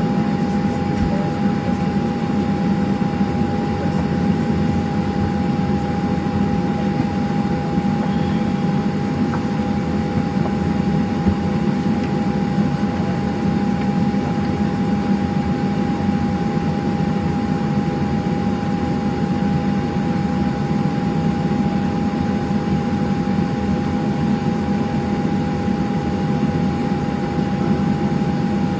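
Boeing 737-700 cabin noise on the ground: a steady engine and air-conditioning hum with two constant whining tones over it.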